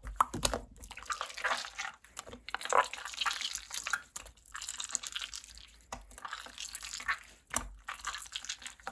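Mint slime being squished and poked by hand: a steady run of irregular wet clicks and squelches, with a few short pauses.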